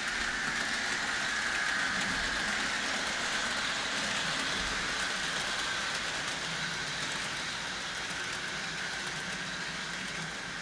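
HO-scale model train running along the track: a steady electric-motor whine with wheel and rail noise, a little louder about two seconds in and then slowly fading.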